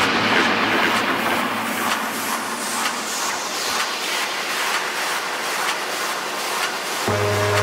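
Techno track in a DJ mix at a breakdown: a loud white-noise wash with the bass cut out, a falling filter sweep and faint regular hi-hat ticks. About seven seconds in, the bass and steady synth notes come back in.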